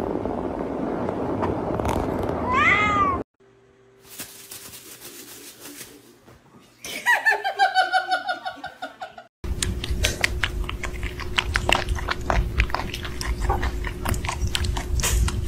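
Domestic cat meowing: one rising-and-falling meow, then a quick run of wailing cat calls, each falling in pitch. After that comes a stretch of rapid clicks and rustling over a steady hum.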